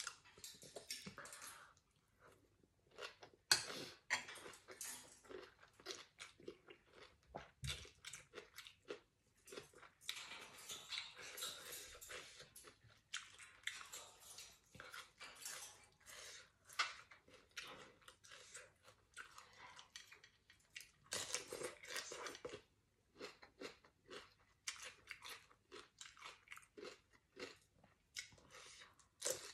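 A person chewing and crunching fresh raw vegetables and salad, many short crisp crunches in irregular runs, with one louder crunch about three and a half seconds in.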